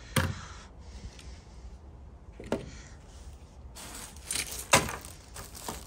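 Knocks and clatter of small toy train engines being handled and set down on a table: a knock near the start, another about two and a half seconds in, then a run of clicks with the loudest knock near the end.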